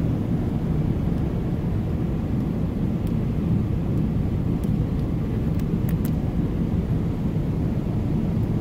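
Steady low drone of an airliner cabin in flight: engine and airflow noise. A few faint light clicks come through near the middle.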